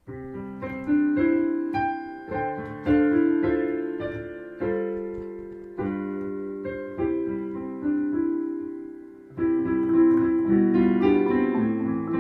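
Solo piano playing a slow melody over chords, each note struck and then fading away. The playing grows fuller and busier about nine seconds in.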